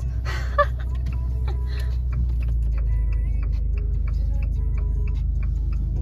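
Steady low drone of a car's engine and road noise heard from inside the moving car, with a light, regular ticking over it in the second half.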